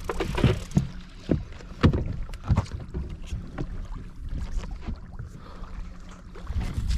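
Irregular knocks and clicks of fishing rods and tackle being handled on a boat while tangled lines are sorted out, over a steady low hum.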